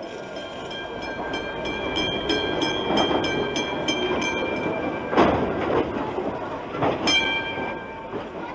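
Tram sound effect: a bell rings in rapid strikes for about four seconds over the rumble and clatter of the tram running on its rails, with a heavier clatter about five seconds in and one more short ring about seven seconds in.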